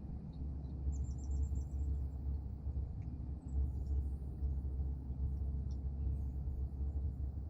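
Steady low rumble of outdoor background noise, with small songbirds at a feeder giving a few faint high chips and one quick high trill about a second in.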